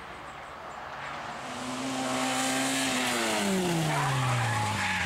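Peugeot 106 rally car's engine coming up loud and close, holding a steady high note, then falling steadily in pitch over the last two seconds as it goes past.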